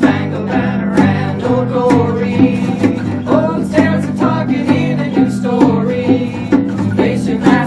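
Live acoustic band playing a song: strummed acoustic guitar, bass guitar, keyboard and percussion with a steady beat, and several voices singing together.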